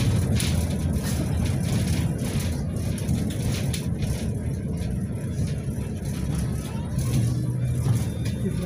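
KTM-5M3 (71-605) tram in motion, heard from inside the car: a steady low rumble of the wheels on the rails and the running gear, with a few short clicks near the start.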